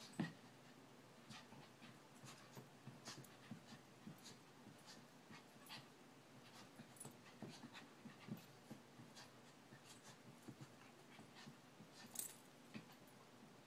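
Faint scuffling of a small long-haired dog and a kitten play-fighting on a woven rug: scattered soft taps and brushes of paws and claws, with the dog's breathing. One sharper tap comes about a quarter second in.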